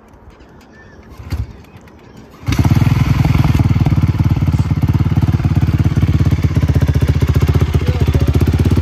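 A Honda quad bike's single-cylinder engine starting: a brief sound about a second and a half in, then the engine catches about two and a half seconds in and idles loudly with a fast, even putter.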